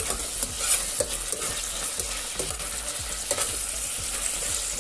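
Marinated chicken pieces sizzling as they sauté in a casserole pot over high heat, with a spatula stirring and scraping against the pot in repeated strokes, about two a second.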